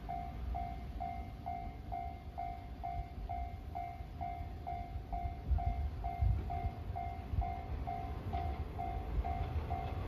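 Japanese railway level-crossing alarm ringing, an electronic ding repeating evenly about two and a half times a second, over a low, uneven rumble.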